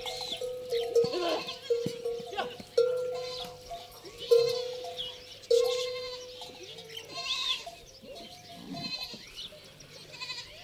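A camel's neck bell clanking, each stroke ringing out on the same note, several times in the first half and then fading. Goats bleat and birds chirp among the bell strokes.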